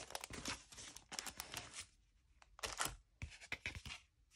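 Thin white wrapping paper and a plastic sleeve rustling and crinkling in short bursts as an item is pulled out of its packaging, with a brief lull about two seconds in.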